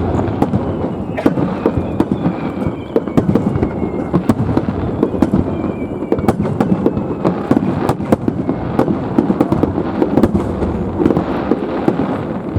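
Dense barrage of aerial fireworks: many overlapping bangs and continuous crackling with no let-up.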